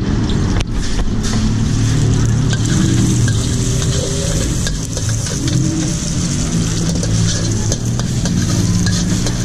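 Egg sizzling in hot oil in a wok, a steady hiss over a strong, steady low rumble, with scattered sharp clicks.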